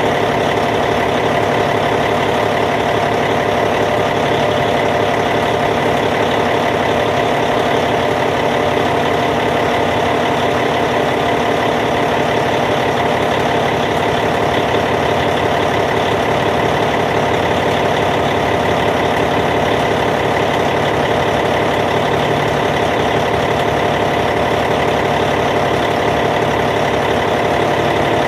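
Caterpillar C15 diesel engine of a Cat D8T bulldozer idling steadily.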